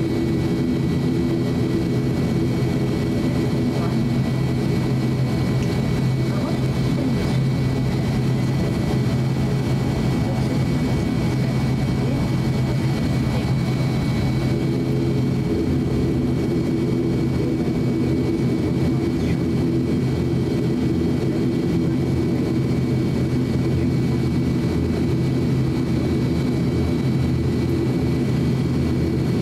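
ATR 42-600's Pratt & Whitney PW127 turboprop engines running at taxi power, heard inside the cabin: a steady propeller drone with a thin, high turbine whine above it.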